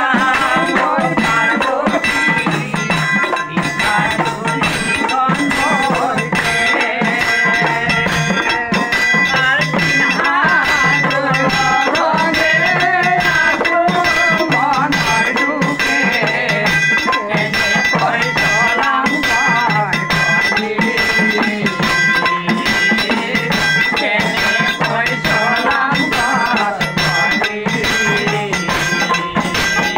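Men singing a folk song together, accompanied by a plucked long-necked lute and a rattling hand percussion instrument, with no break in the music.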